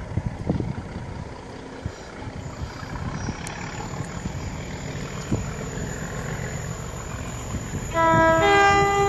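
Class 37 diesel locomotive approaching at a distance, a low rumble slowly building. About a second before the end its two-tone horn sounds loudly, one note and then the other, held.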